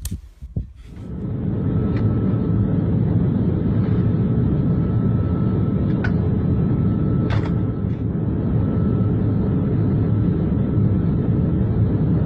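Steady low drone of an airliner cabin, engine and airflow noise, setting in about a second in, with a few light clicks over it.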